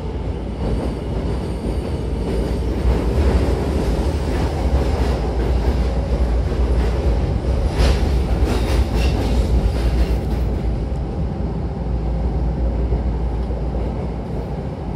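Running noise heard inside a Hankyu Takarazuka Line train car: a steady low rumble of wheels on rail, with a cluster of sharp clicks and rattles about eight seconds in. It eases a little near the end as the train slows toward the station.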